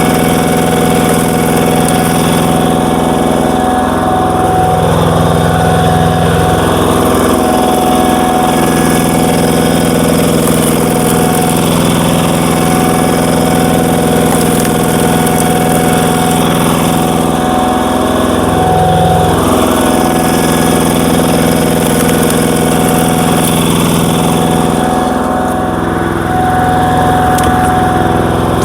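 Power tiller's single-cylinder diesel engine running steadily, driving a screw log splitter. Its pitch sags briefly about four times as the engine comes under load.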